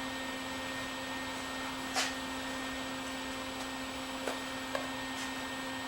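Steady electrical hum of a flux-core wire-feed welder switched on and ready to weld, with a few light clicks of handling.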